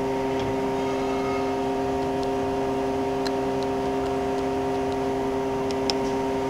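Miyano BND-34T5 CNC lathe under power, giving a steady hum of several fixed tones, while its parts catcher swings in toward the chuck with a couple of faint clicks.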